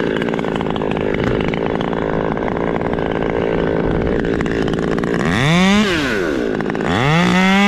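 Chainsaw idling, then revved up about five seconds in and let back down, then revved again near the end and held at high revs.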